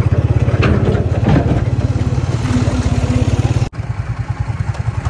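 Motorcycle engine running steadily under way, a fast even beat of exhaust pulses, broken once by a sudden short dropout about three and a half seconds in before it picks up again.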